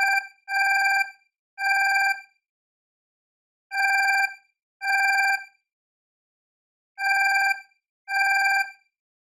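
Alarm clock ringing in short bursts of about half a second, about once a second, with a pause after every second ring.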